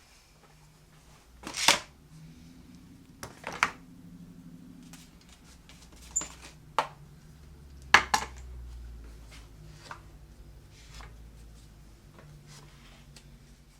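Several sharp knocks and taps of wooden pieces and tools being handled on a workbench, the loudest about two seconds in and again about eight seconds in, over a faint low hum.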